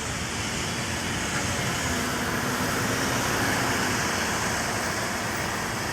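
Road traffic going by: vehicle engines and tyre noise as a steady rush that swells a little midway through.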